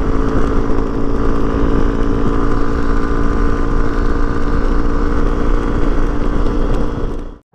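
Hero Xpulse 200's single-cylinder engine running at a steady, unchanging speed as the motorcycle is ridden, cutting off suddenly near the end.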